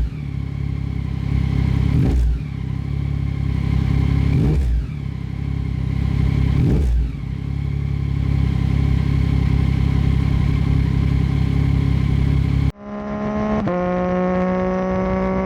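2022 Yamaha Tracer 9 GT's inline three-cylinder engine, through an unbaffled Akrapovic full exhaust, running at idle with a short throttle blip about every two seconds, then settling to a steady idle. Near the end the sound cuts abruptly to the engine pulling with a slowly rising pitch.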